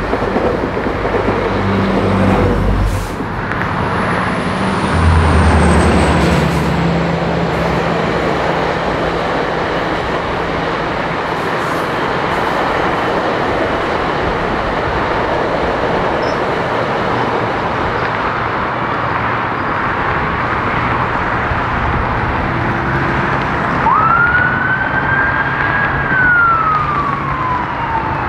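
Steady roar of road traffic and rail noise, with a deep engine drone over the first several seconds. Near the end an emergency vehicle siren wails, rising, holding high and then falling.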